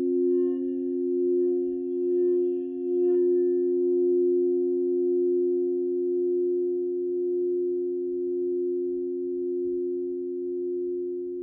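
Crystal singing bowls ringing in two steady low tones with fainter overtones above. For about the first three seconds the sound swells and wavers in slow pulses, then it settles into a smooth, slowly fading ring.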